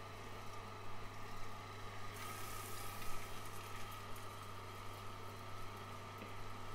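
Angel Juicer twin-gear slow juicer running: a steady low motor hum with a faint higher whine as wheatgrass is fed into its gears and crushed.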